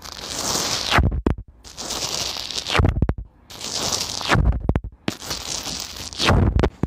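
Fine granular sand hissing and scraping as a small corded metal tip is dragged through it close up. There are about four strokes of roughly a second each, with short pauses, and each stroke slides down in pitch.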